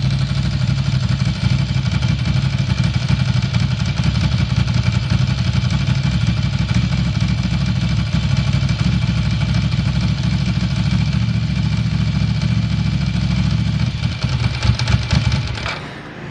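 Ducati M900 Monster's air-cooled 900 cc L-twin idling steadily, which the seller calls a stable idle with no abnormal noises. The engine is switched off near the end and the sound cuts out.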